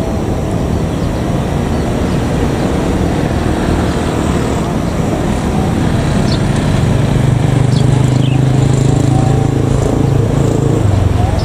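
Diesel-electric locomotive engine running as the train approaches slowly; a low steady rumble that grows louder from about halfway through.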